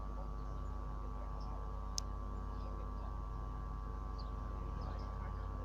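Wind rumbling on the microphone under a steady hum, with faint high bird chirps now and then and one sharp click about two seconds in.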